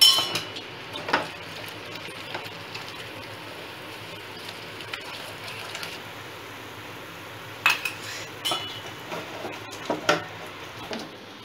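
Perforated wooden spatula stirring and scraping thick custard halwa in a nonstick frying pan, knocking against the pan a few times, over a steady low sizzle of the batter cooking in ghee.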